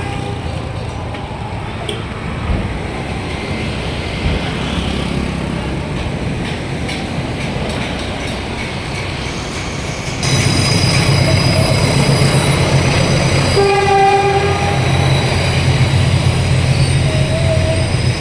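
Traffic noise with a heavy engine running close by, growing louder about ten seconds in, and a short horn blast a few seconds later.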